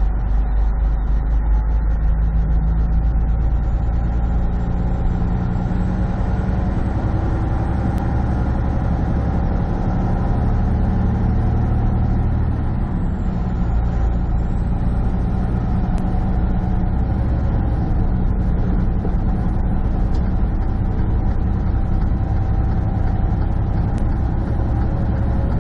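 Semi truck's diesel engine running steadily at highway speed, heard from inside the cab, with a constant drone and road noise.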